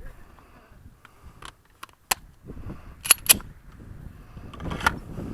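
Sharp metallic clicks and clacks of a Smith & Wesson M&P9L pistol being handled while it is loaded and made ready. About six separate clicks, the loudest a quick pair about three seconds in.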